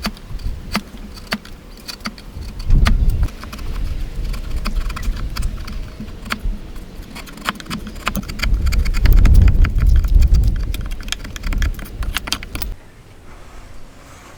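Hand-tool woodworking: a rapid run of sharp wooden clicks and taps with heavier low thuds, loudest about two-thirds of the way in. It stops abruptly shortly before the end.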